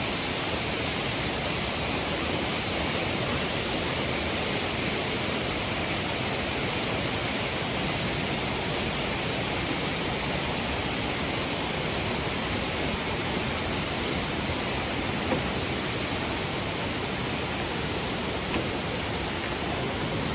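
Steady, unbroken rushing of a tall waterfall, about 98 metres high, heard close by.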